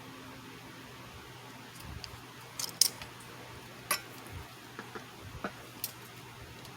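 Small metal tools being handled on a repair bench: a scattering of light clicks and clinks, the sharpest about three seconds in, over a steady low hiss and faint hum.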